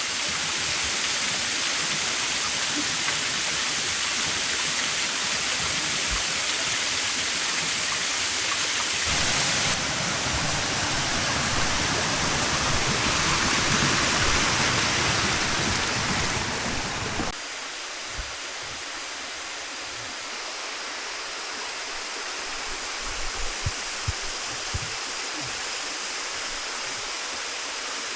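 Waterfall rushing: a steady hiss of falling water. It shifts abruptly about ten seconds in, and again about seventeen seconds in, where it becomes quieter and thinner.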